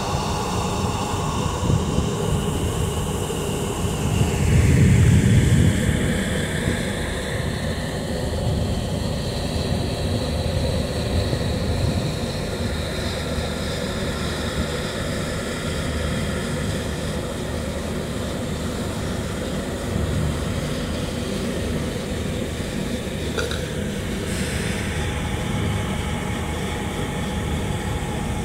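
Steady low mechanical drone of a tugboat's machinery running. It swells a little louder for a couple of seconds about five seconds in.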